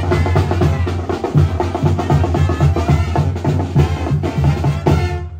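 Music with a steady drum beat and heavy bass, cutting off suddenly near the end.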